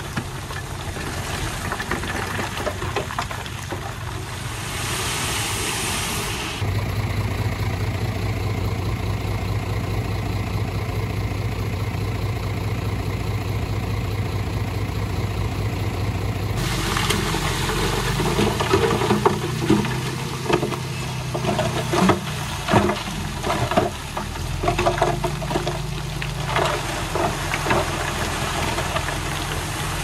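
Heavy diesel earthmoving machinery running. The sound changes abruptly twice: first an engine working, then a steady engine drone, then the engine with repeated clanking and rattling knocks.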